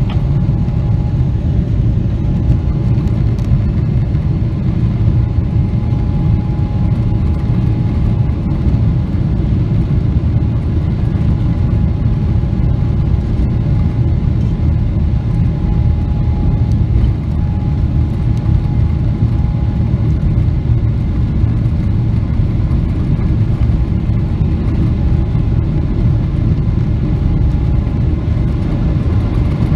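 Cabin noise of a Boeing 777-300ER from a window seat beside its GE90-115B engine as the jet rolls along the ground: a loud, steady rumble with a thin steady whine over it.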